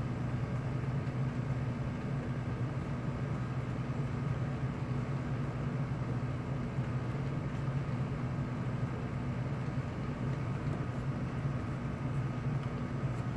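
Model train rolling past: the steady low hum and rolling of a string of model tank cars on track, with no change in pace.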